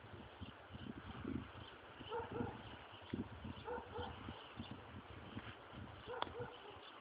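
Short animal squeaks in quick pairs, three times, over light rustling and scuffling, with one sharp click near the end, from a cat playing with a mouse.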